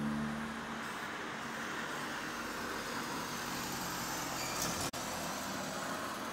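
Steady road traffic noise, with a vehicle engine's low hum near the start. The sound drops out for a moment about five seconds in.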